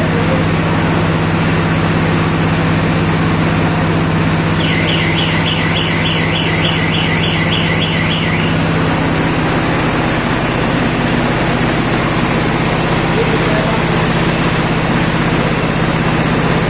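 Diesel engine running steadily, driving a hand-fed silage baler, its note shifting slightly about nine seconds in. From about a quarter of the way in, a quick series of high chirps repeats about three times a second for a few seconds.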